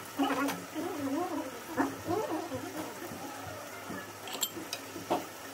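A voice with a rising and falling pitch, indistinct and not loud, with a couple of light clinks near the end.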